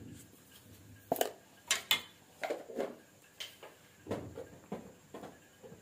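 Metal spoon clinking and knocking against a steel mixing bowl: a string of irregular taps and clinks.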